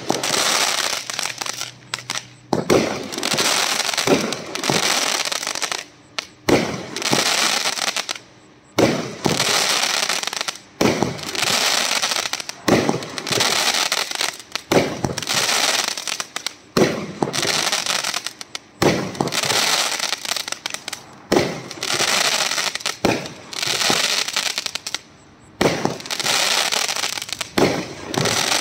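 A 25-shot crackling aerial fireworks cake firing shot after shot, about one every two seconds. Each shot starts with a sharp pop and breaks into a dense crackle that lasts a second or more before the next shot.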